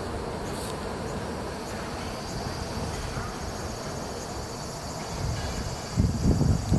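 Outdoor ambience with a steady high-pitched insect buzz coming in about two seconds in. A loud low buffeting rumble of wind on the microphone starts near the end.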